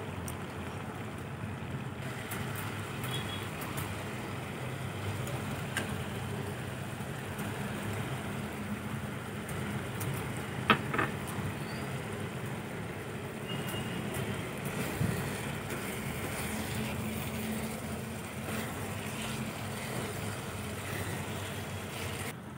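Grated carrot halwa bubbling in a nonstick wok over a steady low rumble, with small popping ticks and a silicone spatula stirring. About ten seconds in there is a sharp clatter, as cashews and raisins are dropped into the pan.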